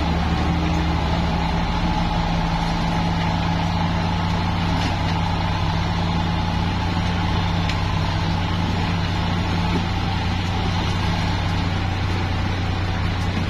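Kubota M8540 tractor's four-cylinder diesel engine running at a steady, unchanging speed while the tractor works its front blade.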